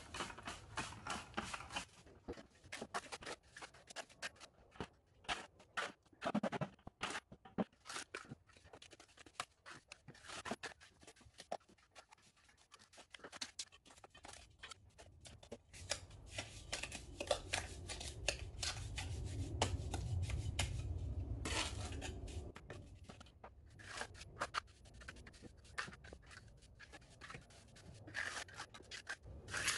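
Hand tools scraping, scratching and tapping in wet mortar mix, irregular strokes throughout, with a low rumble for several seconds midway.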